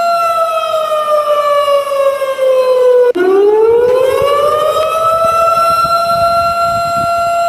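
Siren sounding an earthquake-drill alarm: a steady tone that slides down in pitch over about three seconds, cuts out for an instant, then climbs back up and holds steady.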